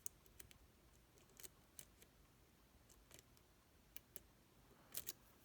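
Faint, irregular small clicks and ticks of a lock pick working the pins of a Zeiss Ikon SK6 pin-tumbler cylinder, with a short cluster near the end.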